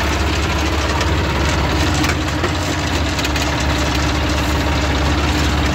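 Tractor diesel engine idling steadily, heard from inside the cab.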